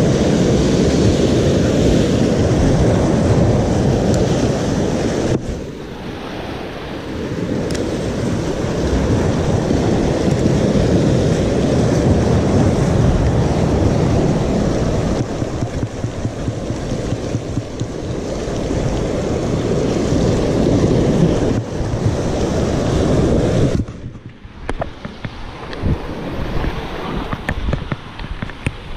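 Sea surf washing and breaking over shoreline rocks, with wind buffeting the microphone. The noise dips briefly about five seconds in and drops sharply to a quieter wash near the end.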